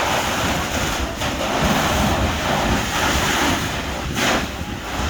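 Wind buffeting the microphone: a loud, rushing rumble that starts abruptly and dips briefly about a second in and again near the end.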